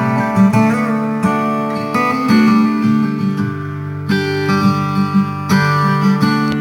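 Acoustic guitar music, plucked and strummed notes, played back through a TDA7293 class A/B amplifier driving a 4-ohm three-way speaker.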